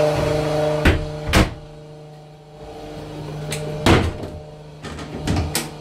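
A door is shut with two knocks about a second in, and the steady hum of the 12-volt Rainman watermaker's high-pressure pump becomes much quieter behind it. A louder thump follows a few seconds later, then a few lighter knocks near the end, while the pump keeps running.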